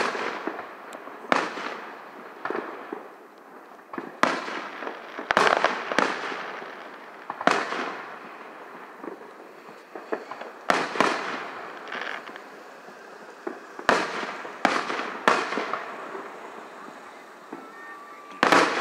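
Aerial firework shells bursting one after another: about a dozen sharp booms at irregular intervals, a few coming in quick pairs, each trailing off in an echo.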